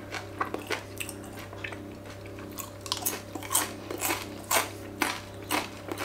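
A person chewing crispy air-fried potato rösti fries: a run of crisp crunches, more frequent and louder in the second half. The fries crunch nicely.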